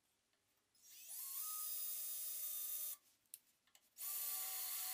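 Electric drill with a 15/32-inch bit boring into the bandsaw's sheet-metal access panel: the motor spins up about a second in and runs steadily for about two seconds, stops with a few light clicks, then starts again near the end.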